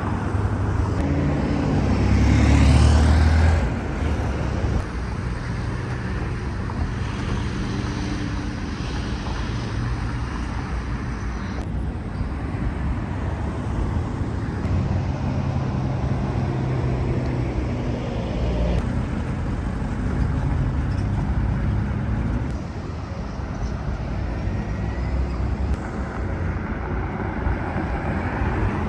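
Road traffic: motor vehicles driving past with a steady engine and tyre noise, one passing louder about two to three seconds in.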